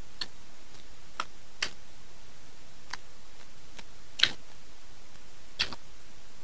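Fingers working rice, sardines and chili sambal by hand: a handful of short, soft, sticky clicks at irregular intervals, the loudest about four seconds in, over a steady hiss.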